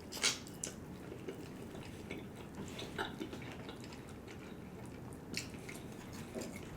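A person chewing fried chicken close to the microphone: faint, scattered wet mouth clicks, with a sharper click just after the start and another about five seconds in.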